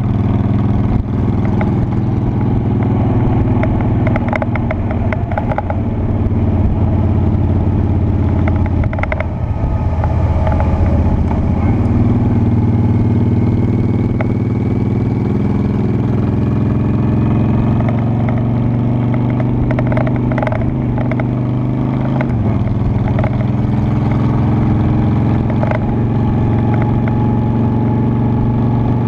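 Honda Shadow Spirit 750's V-twin engine running steadily as the motorcycle is ridden, its note dipping and shifting in pitch briefly about nine seconds in and twice more past the middle, as with throttle and gear changes.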